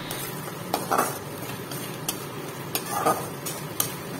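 Thick flat-bean paste sizzling in a metal kadai while a metal spatula stirs it, scraping and clicking against the pan every second or so. The paste is being fried to dry out its water.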